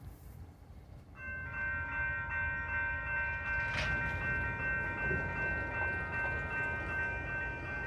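Railroad grade-crossing warning bell starting about a second in and ringing steadily as the crossing signals activate, the sign of an approaching train.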